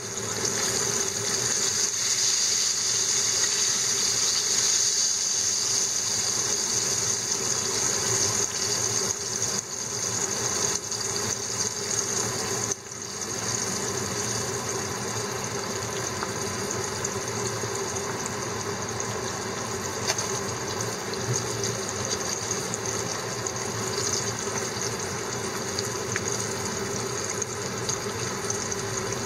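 Horse mackerel fillets deep-frying in a pan of hot oil during their second fry, a steady sizzle and crackle. The sound dips briefly about 13 seconds in.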